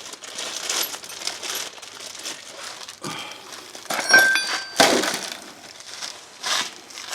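Small metal parts and hand tools being handled: scattered clinks and rustling, with one ringing metallic clink about four seconds in and a sharp knock just after it.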